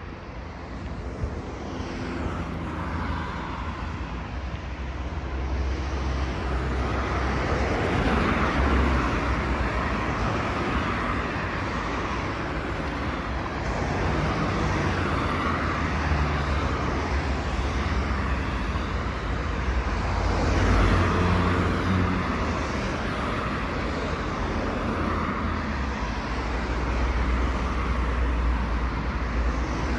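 Street traffic: road noise from passing cars, swelling as vehicles go by, loudest about a third of the way in and again around two-thirds.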